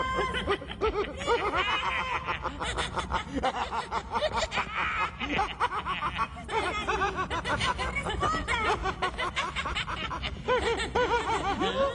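Cartoon voices of the Nome King and his servant snickering and chuckling, giggles coming in quick repeated bursts.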